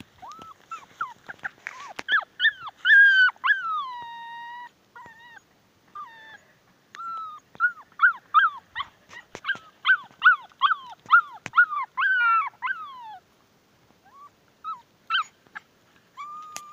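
Puppy whining and yelping in high, falling cries. A long drawn-out whine comes a few seconds in, then a quick run of short whimpering yelps, about two a second, that thins out near the end.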